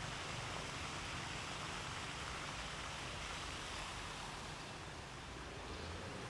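Steady, even hiss with no speech or music.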